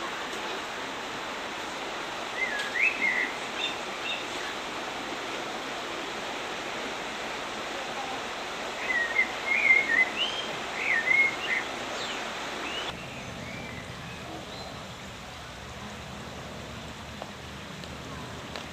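Stream rushing over stones, a steady hiss of flowing water, with a songbird singing two short bursts of quick, warbling chirps. The water sound drops a step quieter about two-thirds of the way in.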